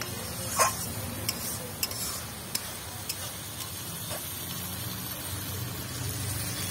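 Spiced masala sizzling in an aluminium kadai as a spatula stirs it, with several sharp clicks of the spatula against the pan, the loudest about half a second in.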